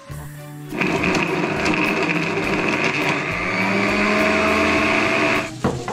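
Electric blender grinding raw chicken fillet. The motor starts about a second in, runs steadily with its pitch creeping slightly up, and stops shortly before the end.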